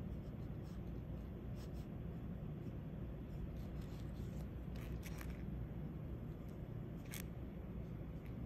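Fine-tip inking pen scratching lightly across sketchbook paper in a few short strokes, over a steady low hum.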